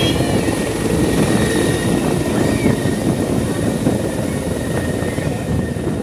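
Helicopter climbing away overhead: rapid rotor-blade beating with a steady high turbine whine, slowly getting fainter toward the end.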